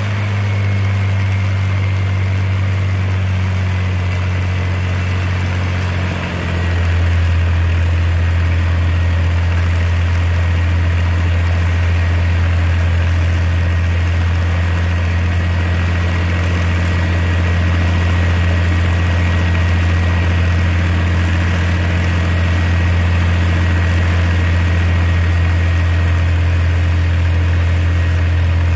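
Bell P-39 Airacobra's Allison V-1710 V12 aero engine idling on the ground with its propeller turning. There is a brief dip about six seconds in, and then it settles into an even, steady idle.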